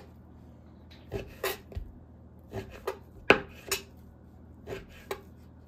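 Chef's knife cutting raw pork tenderloin into cubes, the blade tapping down on the cutting board in a run of about nine sharp, irregularly spaced taps.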